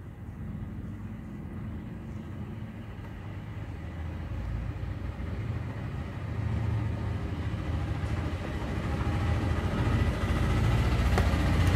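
A steady, low engine-like rumble that grows gradually louder, with a single click near the end.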